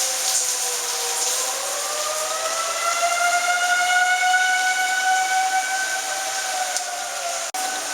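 Outdoor tornado warning siren wailing, its pitch sliding up about a second in and holding high, over a steady hiss. The sound drops out briefly near the end.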